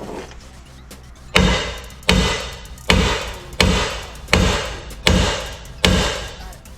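Seven heavy hammer blows on steel, about one every three-quarters of a second, each ringing briefly: hammering on a stuck ball joint to drive it out of the control arm.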